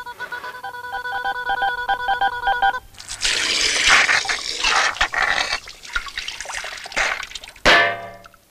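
Cartoon sound effects: a pulsing, beeping electronic tone in several pitches. Then a loud rush of gushing water spraying out. It ends about three-quarters of a second from the end with a sharp hit and a quick falling tone.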